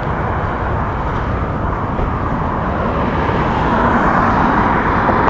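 Steady rumble of passing road traffic outdoors, swelling a little louder near the end.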